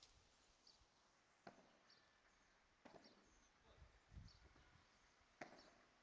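Padel ball struck back and forth in a rally: three sharp, faint knocks of ball on racket and court, each about a second and a half or more apart.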